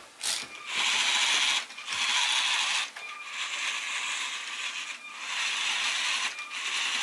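LEGO Boost Vernie robot's electric motors and plastic gear trains whirring in a string of bursts about a second long, one weaker and longer in the middle, as the robot turns and moves its arm on commands from the tablet app.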